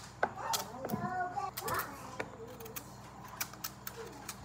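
A knife cutting and trimming the rind off a pumpkin wedge, making a string of short clicks and scrapes. Faint voices are heard in the background during the first two seconds.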